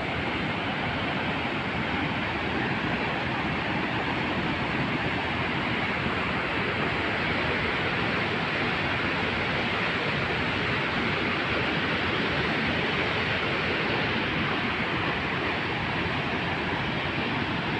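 Water gushing from a dam's outlet and churning in the river below: a steady, even rush of white water.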